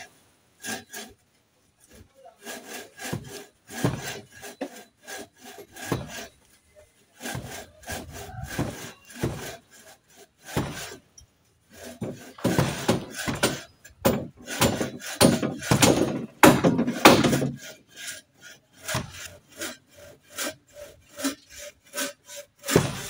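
Bow saw cutting through a eucalyptus pole: runs of back-and-forth strokes with short pauses, loudest about halfway through.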